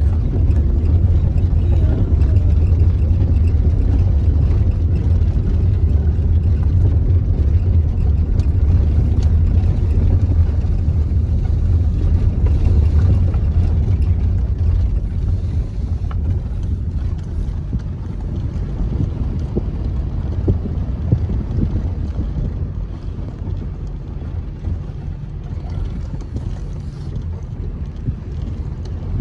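Steady rumble of a car driving on a dirt track, heard inside the cabin: engine and tyre noise, easing a little past the middle.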